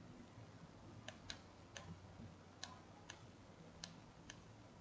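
Faint, irregular clicks, about seven of them, from the controls of a Radtel RT-470X handheld transceiver being pressed and turned, over near silence.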